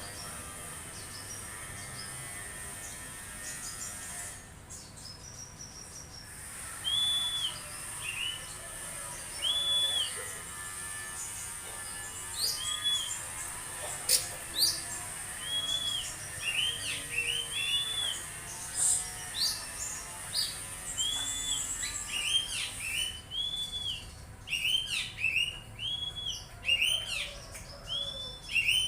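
Oriental magpie-robin (kacer) singing: a clear whistled note repeated every second or two, with quick chirps between. The song grows busier and louder over the last several seconds.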